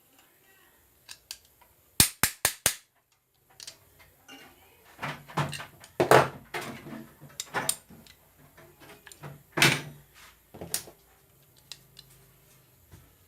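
Sharp knocks on a mixer grinder motor as its rotor is tapped to set it free: four quick taps about two seconds in, then a run of heavier, irregular knocks.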